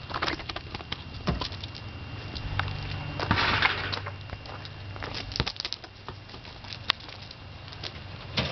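Light patter, clicks and scuffling on paving and gravel as a Holland Lop rabbit hops and shoves a soccer ball about, with a louder half-second scrape about three and a half seconds in.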